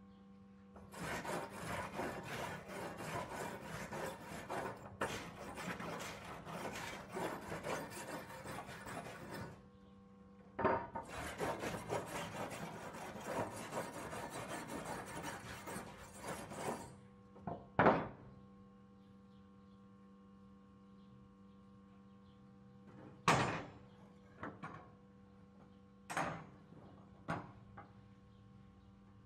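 A hand-held flat steel scraper scraping rust off a rusty steel sword blade that lies on wooden planks. The strokes are rapid and come in two long spells, followed by a few single scrapes near the end.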